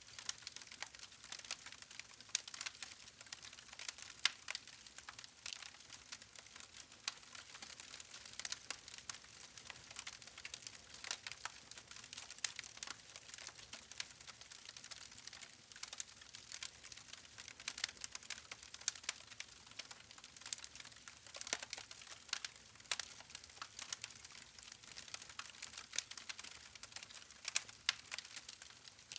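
Campfire of burning logs crackling: frequent, irregular sharp pops and snaps over a soft hiss.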